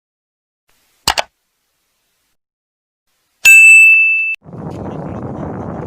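A short crackle about a second in, then a loud bright bell-like ding that rings for nearly a second and cuts off sharply, followed by a steady rushing noise like wind on the microphone.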